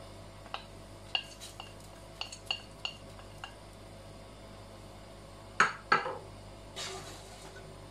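Metal spoon and small dishes clinking lightly several times while spices are spooned into a pan of oil, then two sharp knocks in quick succession about two-thirds of the way through, followed by a brief hiss.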